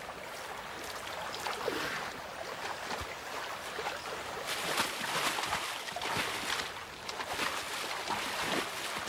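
Bison wading through a shallow, stony river: water splashing and sloshing around their legs over a steady rush of water. The splashes come thicker and louder about halfway through.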